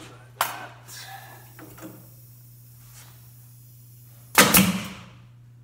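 Two sharp knocks about four seconds apart, the second the louder, each trailing off briefly, over a steady low hum.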